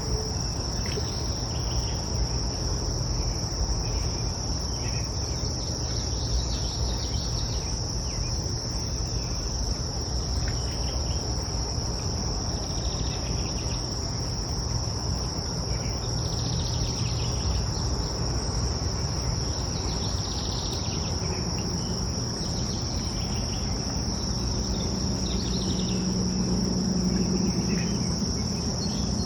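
A steady, high-pitched insect chorus, one unbroken shrill drone, over a low, even rushing noise, with a few faint chirps scattered through it.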